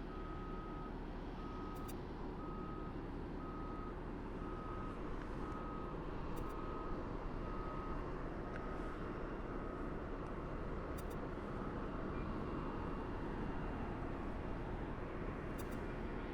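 A vehicle's reversing alarm beeping steadily about once a second, stopping around ten seconds in, over a steady low rumble.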